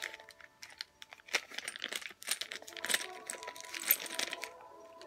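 Small metal screws and driver bits clinking and rattling inside a clear plastic bag as it is handled, with irregular clicks and crinkling of the plastic.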